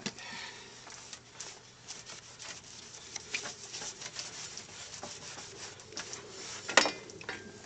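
Irregular rubbing and scraping strokes on a plastic headlight lens, with one sharp knock about seven seconds in.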